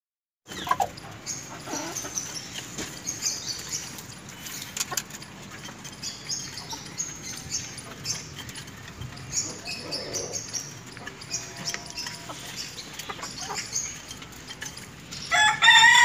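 A flock of desi golden Misri chickens feeding: scattered soft clucks and the ticking of beaks pecking grain, then about a second before the end a rooster breaks into a loud crow, the loudest sound here.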